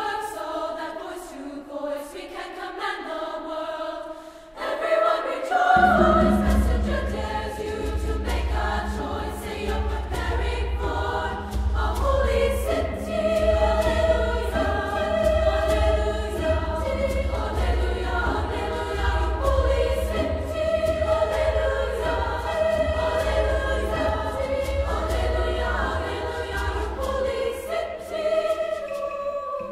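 Women's choir singing in parts, with a low drum entering beneath the voices about six seconds in and carrying on under them.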